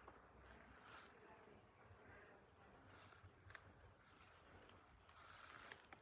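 Faint, steady high-pitched trill of insects, with the soft footsteps of someone walking.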